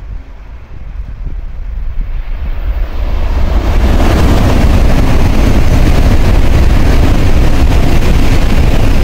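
N700-series Shinkansen passing through the station at high speed without stopping. The rush of noise swells over the first few seconds as the train approaches, then holds as a loud, steady rush with deep rumble as the cars go by.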